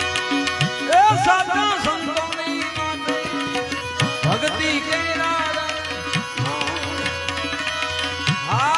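Harmonium holding steady chords while a tabla plays a rhythm, in the instrumental interlude of a Gujarati bhajan. Short gliding melodic runs come in about a second in, again midway, and near the end.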